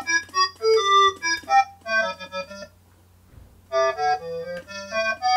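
A breath-controlled MIDI ocarina played by fingering and blowing, sounding a synthesized instrument voice. It plays a quick melodic run of short notes, pauses for about a second near the middle, then plays a second phrase that ends on a longer held note.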